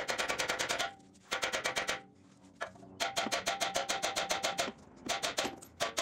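Heavy hammer striking a steering knuckle, metal on metal with a ringing tone, in several bursts of rapid blows. The blows are meant to shock the outer tie rod end's tapered stud loose from the knuckle.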